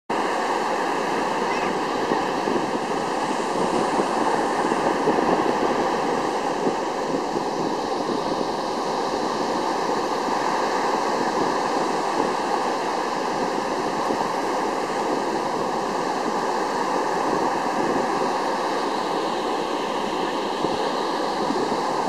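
Sea surf: small waves breaking and churning into foam at the shoreline, a steady rushing wash of water that swells slightly about four to six seconds in.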